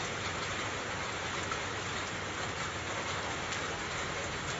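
Rain falling steadily on a flooded street: an even, unbroken hiss of drops on standing water.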